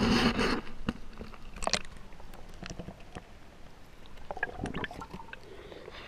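Handheld camera lowered into a shallow brook: water splashing and sloshing over the microphone as it goes under, then muffled underwater sound with a sharp click a little under two seconds in and a few knocks and bumps near the end.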